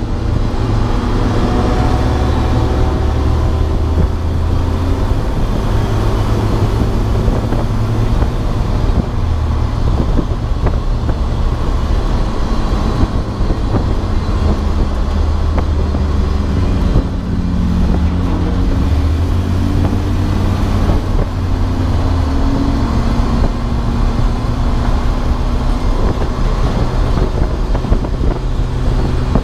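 Race car engine running hard on track, its pitch rising and falling with throttle and gear changes, over steady road and wind noise, heard from inside the car.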